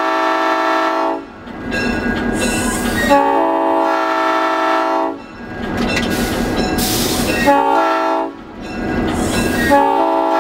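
Nathan P5 five-chime air horn on an EMD GP38-3 locomotive, sounded in four blasts: long, long, short, long, the pattern of a grade-crossing signal. Between blasts the locomotive rumbles along on the rails.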